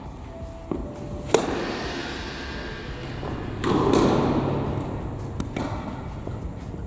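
Tennis ball struck by a racket and bouncing on an indoor hard court: a few sharp pops, the loudest about a second and a half in, ringing on in the large hall. A broader rush of noise rises near four seconds in.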